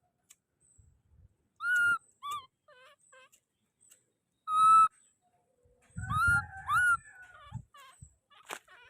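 Baby monkey crying with short, high, whistle-like calls that bend down in pitch, the loudest about two and five seconds in, then a quick cluster of calls with a low rumble near the end.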